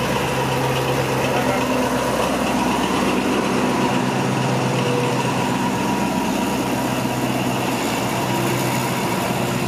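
Diesel locomotive pulling a passenger train out of the station and passing close by, its engine rumbling loudly and steadily under load as the train gets under way.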